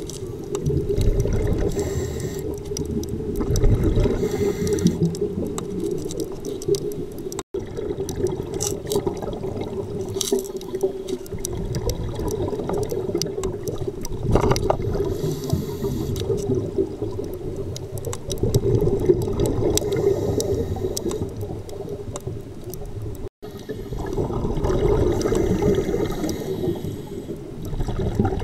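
Muffled underwater noise from a camera in its housing, with the diver's scuba regulator exhaust bubbles gurgling in swells every few seconds. The sound cuts out for an instant twice.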